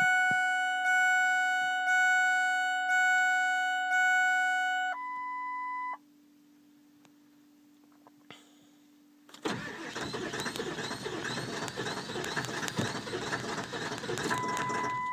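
Ford Power Stroke diesel truck's warning chime dinging about once a second for five seconds, then a short beep and a pause. From about nine seconds in, the starter cranks the cold diesel rhythmically without it catching: a hard cold start.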